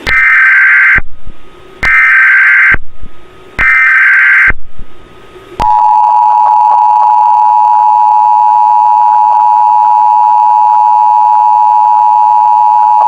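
Emergency Alert System header: three one-second bursts of SAME digital data tones, each a rapid warbling buzz. About five and a half seconds in, the steady two-tone EAS attention signal (853 and 960 Hz sounded together) begins. Together they mark the start of an emergency alert broadcast, here a nationwide test.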